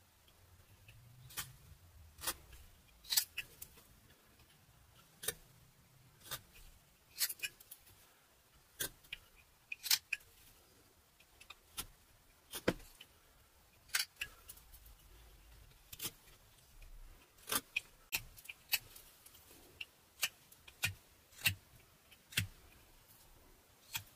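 Carving knife slicing into butternut wood in short whittling strokes: sharp, irregularly spaced snicks as each cut finishes and a chip breaks away, roughly one a second, some louder than others.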